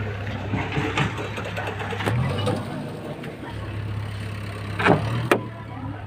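Heavy diesel truck engine idling with a steady low hum. A couple of sharp knocks sound about five seconds in.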